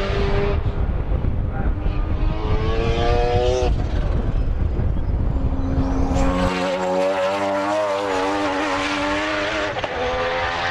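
Three-rotor rotary engine of the RE Amemiya RX-7 race car at full throttle. It climbs steadily in pitch, drops off about four seconds in, then holds a high, wavering note before falling again near the end.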